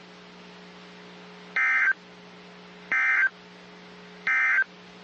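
NOAA Weather Radio SAME end-of-message data tones: three short, buzzy digital bursts about 1.3 seconds apart, closing the flash flood warning. They play over a low steady hum from the radio.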